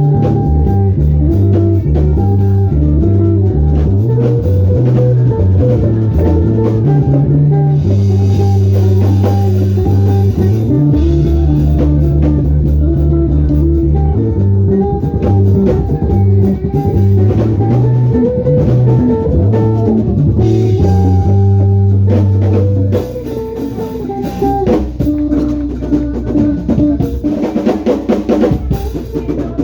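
Instrumental band music: a prominent bass guitar line over guitar and drum kit. About 23 seconds in the bass drops out and the music turns quieter, carried mostly by the drums.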